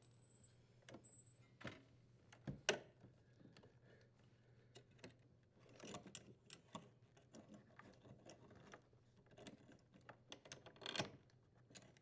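Faint, scattered clicks and taps of small parts being handled: a cable strain relief nut being unthreaded and the strain relief worked free of a dishwasher's electrical junction box.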